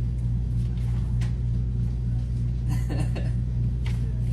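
A steady low hum or rumble runs unbroken under a few faint clicks and rustles of handling.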